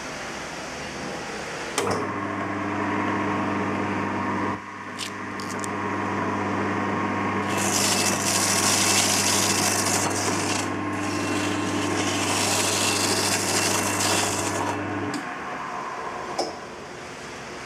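Electric tapioca (cassava) grinder switched on: its motor starts about two seconds in and runs with a steady hum. Twice it breaks into a loud, harsh rasping as cassava is shredded, and the motor stops a couple of seconds before the end.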